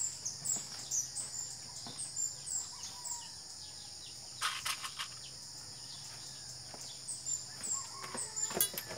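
Steady high-pitched drone of insects, with a bird chirping about twice a second during the first three seconds. A short clatter of clicks comes about halfway through and again near the end.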